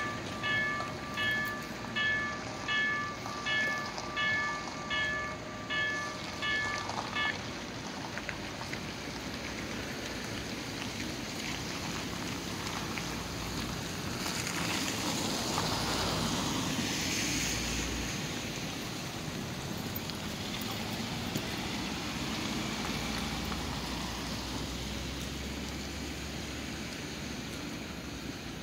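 Railway level-crossing warning bell ringing about one and a half strokes a second, stopping about seven seconds in. After it, cars drive over wet asphalt with tyre hiss, swelling as vehicles pass near the middle.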